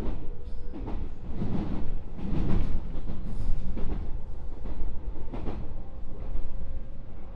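Running noise of a JR West 221 series electric train heard inside its motor car: a steady rumble of wheels on rail, with a few irregular clacks of the wheels crossing rail joints or points.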